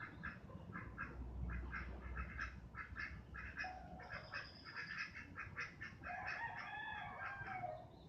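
Night nature ambience: many short animal calls repeating about three times a second, with a longer wavering call near the end.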